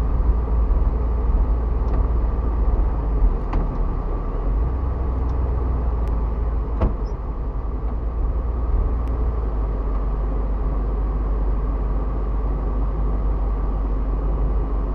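A 1977 Jeep Cherokee driving slowly on a dirt road, heard from inside the cab: a steady low engine and road rumble, with a few light knocks and rattles, the sharpest about three and a half and seven seconds in.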